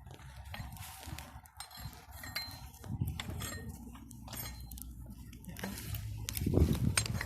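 Wind buffeting the microphone in a low, uneven rumble that grows stronger near the end, with scattered sharp crackles and snaps from a small burning bonfire.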